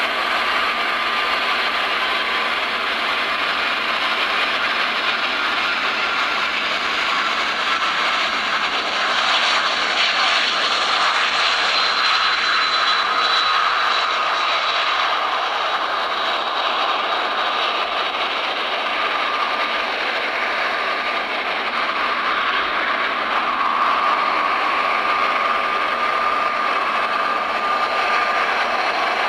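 Jet airliner engines at takeoff power, a steady rushing noise with a high whine that slides slightly down in pitch midway.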